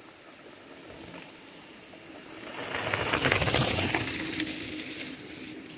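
Mountain bike passing close at race speed on a loose dirt trail: tyre noise with a rapid clatter of clicks swells, peaks about three seconds in, and fades away.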